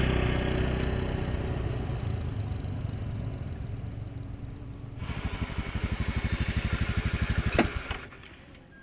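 Motor scooter engine running as it pulls away across grass, slowly fading. About five seconds in, an engine grows louder again with a fast, even pulsing, then cuts off suddenly near the end.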